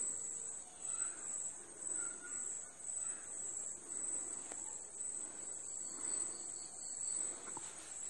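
Sliced onions being stirred and sautéed in oil in a pan with a spoon: soft scraping and light sizzling that swell about once a second. A steady high-pitched pulsing tone sits behind it.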